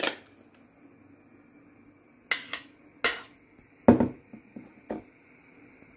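Metal fork scraping and clinking against a glass mixing bowl while almond cream is scraped out onto pastry: a knock at the start, two scrapes in the middle, a heavier knock about four seconds in, then a few light taps.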